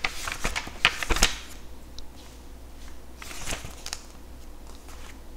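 Light scattered clicks and rustling of hands at a desk looking through a book, busiest in the first second and again about three seconds in.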